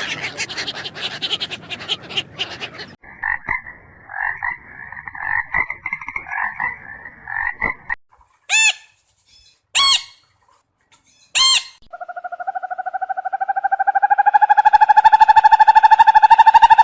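Frog calls in a row of separate clips: after a few seconds of rough scratchy noise, a pulsing croak, then three short separate calls, then a long fast trill that grows louder.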